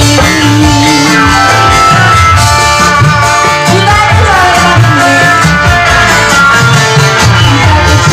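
Loud, amplified live band music with a woman singing into a microphone, her voice wavering in the first couple of seconds over the band.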